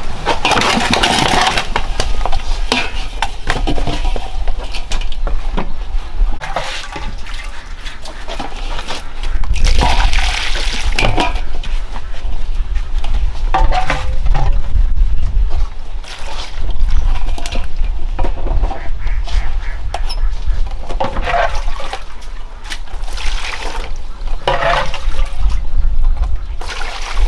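Water splashing and sloshing in a large metal basin of live snakes, in several separate bursts, over a steady low rumble.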